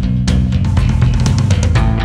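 Background rock music with drums and guitar, with a steady driving beat.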